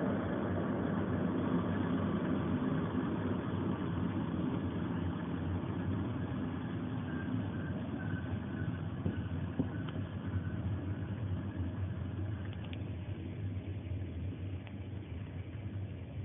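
Rolling rumble of a Corail passenger carriage on the rails, heard from on board. It gradually grows quieter as the train slows near the end of its run. A faint high squeal comes briefly near the middle.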